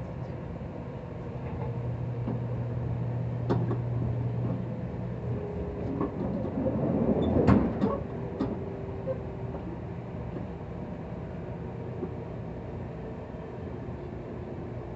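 Cabin noise of a JR Kyushu 783 series electric train running: a steady rumble with a low hum for a few seconds, scattered clicks and knocks, and a louder burst of clatter about seven to eight seconds in.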